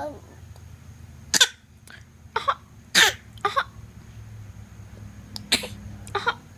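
A series of six short, sharp coughs at uneven spacing, with a longer pause in the middle.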